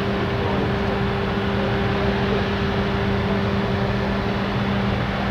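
A machine running steadily: a constant low hum at one pitch over an even rushing noise, unchanging throughout.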